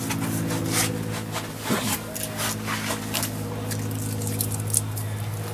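Short irregular clicks, scrapes and rustles of hand work with a small tool and a nut behind a pickup truck's front-bumper mesh grill, over a steady low hum.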